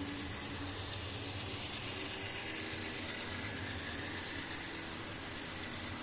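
HO-scale model coal train rolling past: a steady running noise of the cars' wheels on the track, with a faint low hum.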